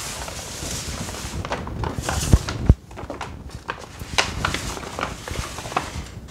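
Scattered knocks and clicks of slime-ingredient containers being picked up, moved around and set down on a table, with two louder thumps about two and a half seconds in.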